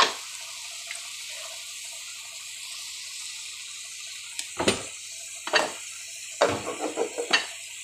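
Scrambled egg and tomato frying in a tawa, sizzling with a steady hiss. In the second half a wooden spoon knocks and scrapes against the pan several times while stirring.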